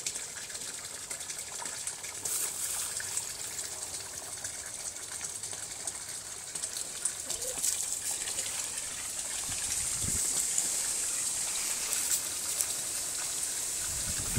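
Small garden pond waterfall splashing steadily into the pond.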